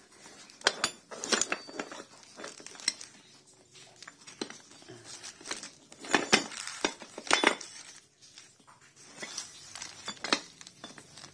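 Loose metal motorcycle engine parts knocking and clinking against each other as a heap of parts is rummaged through by hand, with plastic bags crinkling. The knocks come irregularly, several of them louder.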